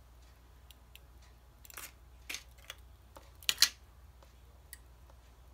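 Scattered soft clicks and rustles of hands handling cloth-covered floral wire and small hand tools on a cutting mat, the loudest click coming about three and a half seconds in, over a faint low hum.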